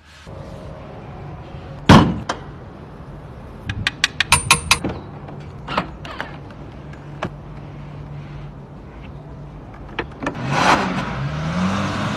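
A loud single thump about two seconds in and a quick run of sharp clicks around four to five seconds, the sounds of the car's doors, boot and fittings being worked. Near the end a Rolls-Royce Phantom Coupé's V12 engine gets louder and rises in pitch briefly.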